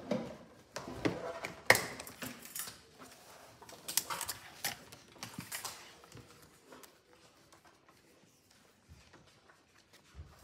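Scattered clicks, taps and rustles of paper, ring binders and tablet covers being handled at desks. They are busiest in the first half, with the sharpest knock about two seconds in, then thin out to faint ticks.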